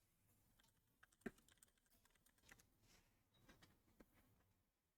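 Near silence with faint, scattered small clicks and taps, the sharpest about a second in.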